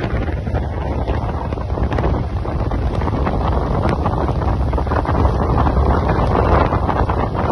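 Heavy wind buffeting the microphone over the steady rumble of a train running along the track.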